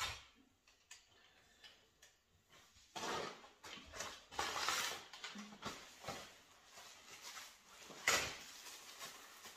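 Rustling of a folded black fabric softbox and its packaging being handled, with a few light clicks and a sharper knock about eight seconds in.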